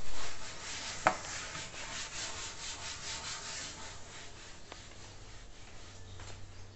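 Scratchy rubbing noise from the phone being handled and moved, with one sharp click about a second in.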